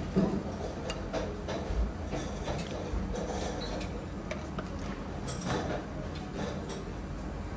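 Wooden serving tongs clicking and tapping against plates and serving bowls, with many small knocks spread through, over a steady low hum of room ambience.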